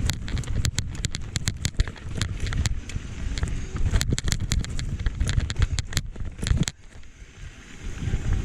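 Wind buffeting the microphone while a mountain bike rattles over a rough dirt trail, with many sharp irregular clicks and knocks. The rumble drops away for about a second near the end, then returns.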